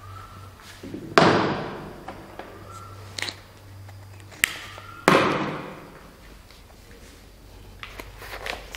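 Two loud thuds about four seconds apart, each ringing out briefly in a reverberant room, over a steady low hum, with a few light clicks near the end.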